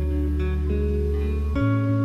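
Background instrumental music: held chords over a low bass, changing chord about one and a half seconds in.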